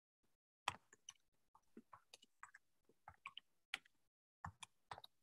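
Near silence broken by faint, irregular clicks and small taps, about a dozen in all.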